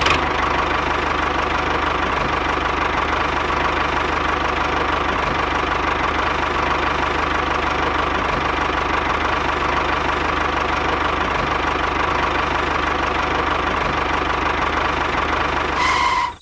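Tractor engine running steadily at an even speed, then cutting off abruptly just before the end.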